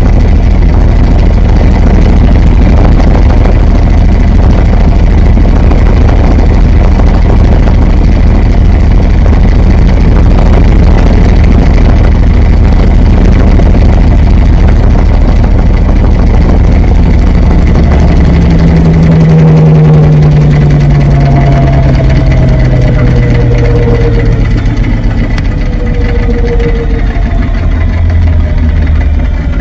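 Washing machine drum turning, recorded from inside the drum: a loud, steady rumble. About two-thirds of the way through, a motor whine comes in and slowly falls in pitch as the drum slows.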